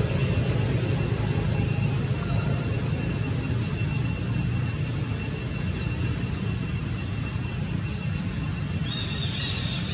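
Low background rumble that slowly fades, with a steady high-pitched whine over it.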